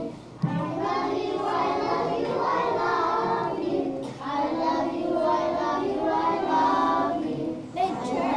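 A group of young children singing together in long held notes, with short breaks about four seconds in and near the end. A brief thump comes about half a second in.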